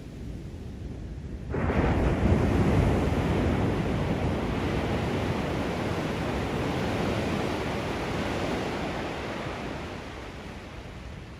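A sea wave breaks about one and a half seconds in: a sudden rush of surf that slowly fades as the wash runs up the beach.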